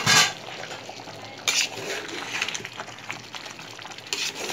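A metal spoon stirring and scraping through half-cooked rice in a metal pot, with a loud clatter at the start and sharper scrapes about a second and a half in and near the end.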